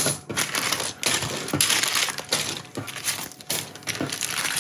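Plastic bags of small plastic building blocks crinkling and rustling as they are handled and torn open, with many small clicks of the blocks shifting inside.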